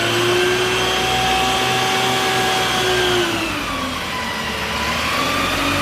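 A small motor running steadily with a whine that sags lower in pitch a little past halfway.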